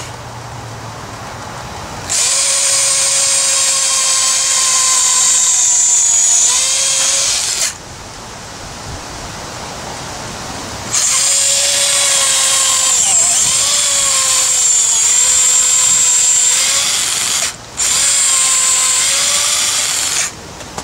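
Corded electric drill boring holes with a 3/16-inch bit into the old wooden handle stuck in a sledgehammer head's eye, to break the wood out. It runs in three bursts of a few seconds each, its whine dipping in pitch as the bit bites into the wood and recovering.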